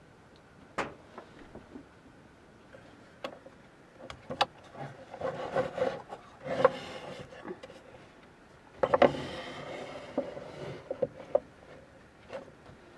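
Small hinged wooden box being handled and opened on a wooden tabletop: scattered sharp clicks and knocks, then two stretches of wood rubbing and sliding about five and nine seconds in, followed by a few light knocks.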